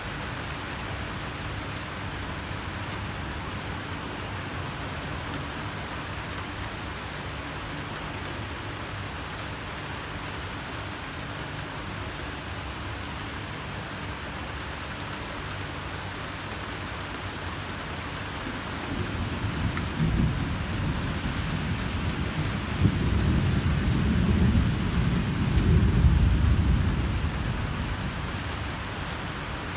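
Steady heavy rain, with a long roll of thunder that builds about two-thirds of the way in, rumbles loudest near the end and then fades.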